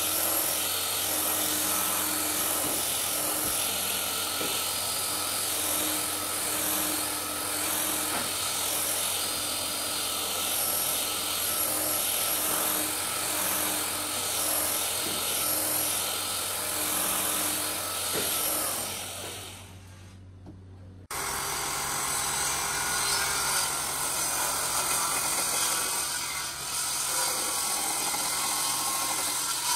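Belt sander running steadily with its belt on a wooden board, a continuous motor whine that fades out about twenty seconds in. It cuts abruptly to a different handheld power tool running steadily across a large wooden slab.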